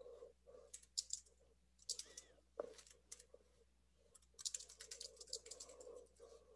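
Faint, irregular clicks and taps of typing on a computer keyboard, with a denser run of keystrokes about two-thirds of the way through.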